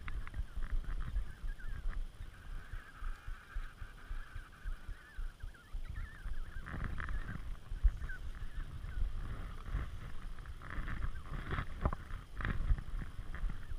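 Emperor penguins calling: a long wavering call a few seconds in and several more near the end, over a low rumble of wind on the microphone.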